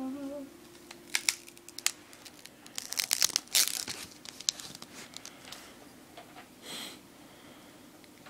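Crinkling and crackling handling noise: irregular sharp crackles, densest about three to four seconds in, with a short rush of noise near the end.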